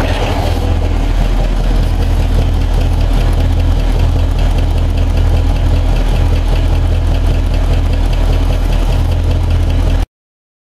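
1970 Dodge Charger's 318 small-block V8 idling steadily with a deep low rumble. The sound cuts off abruptly near the end.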